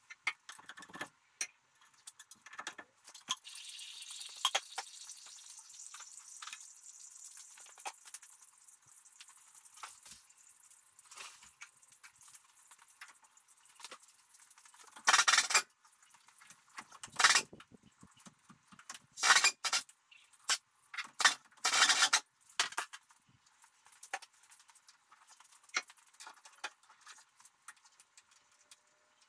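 Sped-up garage work on a truck's underside: scattered clinks and rattles of metal tools, with a handful of short, louder bursts of noise in the second half.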